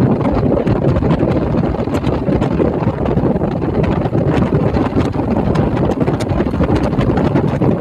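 Wind buffeting the microphone: a loud, steady, gusty rumble with no clear engine note.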